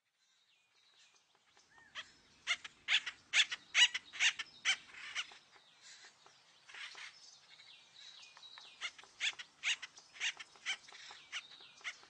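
Acorn woodpecker calls: a run of harsh, repeated calls at about two or three a second, loudest over the first few seconds, then carrying on more softly with thinner chirps.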